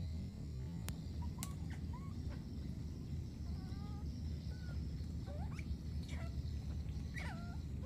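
Scattered short, high squeaking calls from a small animal, some rising and some falling in pitch, over a steady low rumble.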